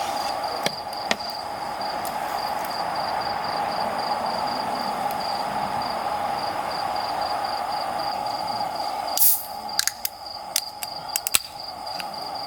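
Crickets chirping in an even pulsing rhythm of about four chirps a second over a steady insect drone. A few sharp clicks come about three quarters of the way through.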